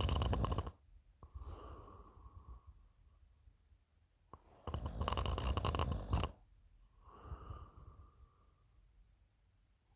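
A person snoring in sleep. One loud rattling snore ends just after the start and another comes about five seconds in. Each is followed by a softer breath out with a faint whistle.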